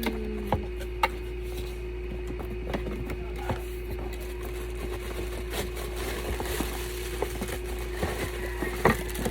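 Small clicks and faint rustling of packaging and items being handled during an unboxing, over a steady electrical hum.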